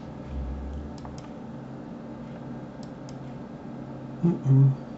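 Computer mouse clicking faintly a few times, in pairs, over a steady low hum. Near the end a man gives a short hummed "mm".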